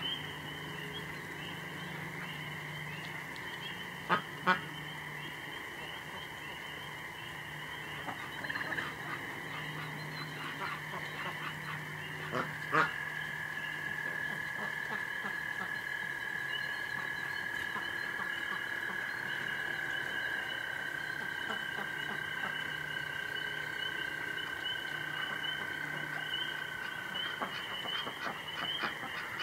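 Night chorus of frogs chirping steadily, with a long, even, high-pitched call holding from about twelve seconds in until shortly before the end. Ducks and geese call now and then, and there are a couple of sharp clicks about four seconds in and another near thirteen seconds.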